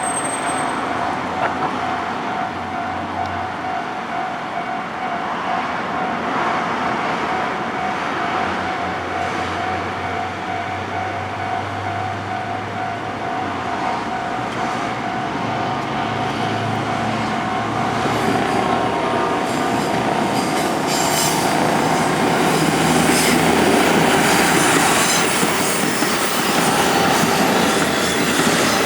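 JR Central KiHa 25 series diesel railcars approach and pass over a level crossing, growing louder from about 18 seconds in, with rapid clicking of wheels over rail joints. The crossing bell rings steadily throughout, and a helicopter drones in the background.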